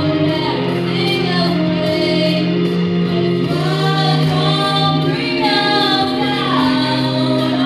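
A girl sings into a handheld microphone, amplified through a PA speaker over accompanying music with long held bass notes. Her voice holds and bends between notes without a break.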